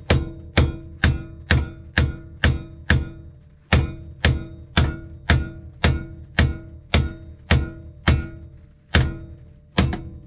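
About eighteen sharp hammer taps, roughly two a second, each ringing briefly, struck on a rusty electric rear-seat adjuster of a Mercedes W126 to free it. The adjuster is seized and will not move even with power fed straight to its motor.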